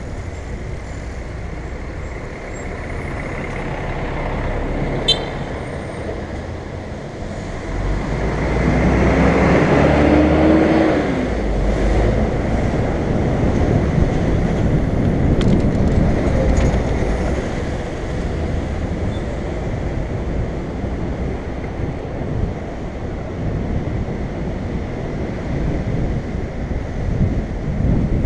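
City road traffic heard from a bicycle in the flow of traffic: a steady rumble of engines and tyres that grows louder about a third of the way in as a city bus runs close alongside, its engine rising in pitch briefly as it pulls ahead.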